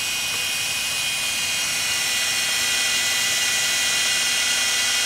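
Cordless drill running steadily, its twist bit boring a pilot hole into aluminum, with a steady whine over the hiss of the cutting.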